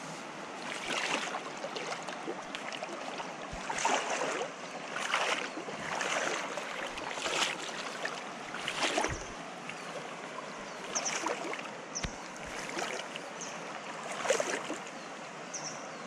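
Legs wading through a shallow river, splashing at uneven steps every second or two. Under the splashes the flowing water rushes steadily.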